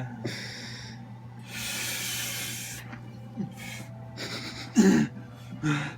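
A person breathing hard, with deep, noisy breaths in and out, gulping air to stop hiccups. A little before the end come two short, sharp voiced gasps.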